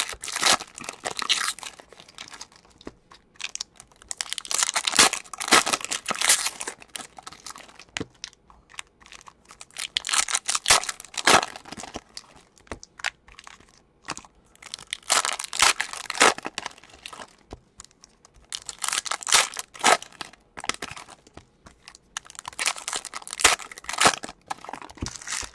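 Foil wrappers of 2016-17 Panini Prizm basketball card packs torn open and crinkled by hand, one pack after another. About six bursts of tearing and crinkling come several seconds apart.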